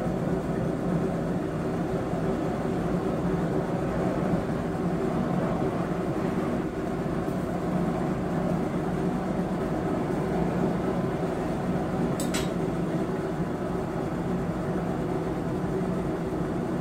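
Electric air blower feeding a blacksmith's coal forge, running steadily with a constant hum. There is a brief sharp click about twelve seconds in.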